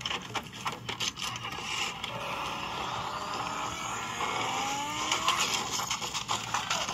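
A car engine running and revving up, its pitch rising about two thirds of the way in, played back through laptop speakers. There are scattered knocks near the start and again near the end.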